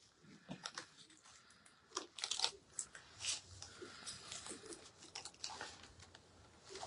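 Faint rustling and light, irregular clicks of artificial flower stems and greenery being handled and set in place.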